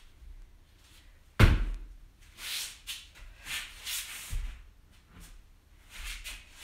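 A body landing hard on a thin exercise mat over a wooden floor in a forward breakfall: one sharp, loud thump about a second and a half in. Short rubbing and scuffing follow as bare feet shift and pivot on the mat, with a softer thump near the end.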